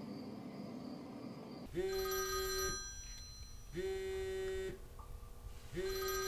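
Phone ringing on an incoming call: three electronic rings, each about a second long and about two seconds apart, the first coming in just under two seconds in.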